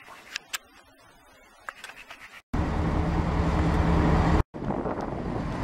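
A car ferry's engines running with a steady low drone, cutting in suddenly about two and a half seconds in after a quiet stretch with a few faint short chirps. Near the end it breaks off briefly and comes back as a steady rushing noise.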